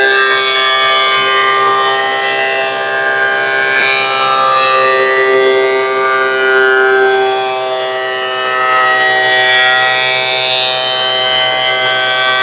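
Thickness planer running with a steady whining drone, its pitch wavering slightly as it planes a green hickory board.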